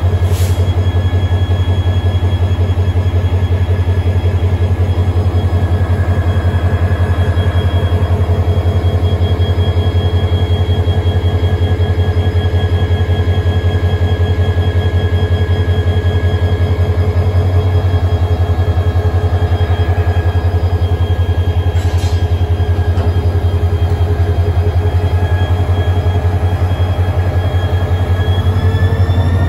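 Diesel engine of KTM Class 25 shunting locomotive 25204 running at close range: a deep, fast, even throb with a steady high whine over it. The engine note rises near the end as it revs up.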